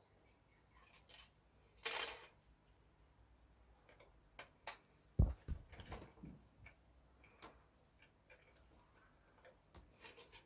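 Small, irregular clicks and taps of metal clock hands being handled and pressed onto the clock's centre spindle, with a brief rustle about two seconds in and a dull knock a little after five seconds.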